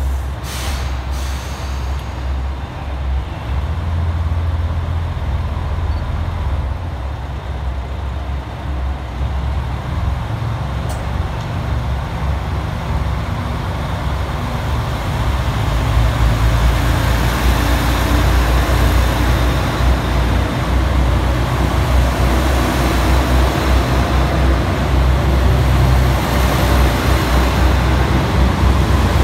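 JR Shikoku 2000 series diesel multiple unit pulling out: its diesel engines run with a deep steady drone that grows louder about halfway through as the train picks up speed and the cars pass close by.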